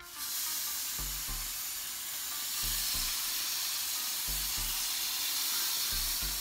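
Skewered cubes of marinated souvlaki meat sizzling on the hot grill plate of an electric smokeless Power Grill. The sizzle starts abruptly as the first skewer goes down and then holds steady as more skewers are added.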